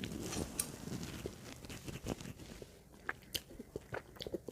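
Close-up chewing of soft mooncake: wet mouth clicks and smacks, irregular and fairly quiet.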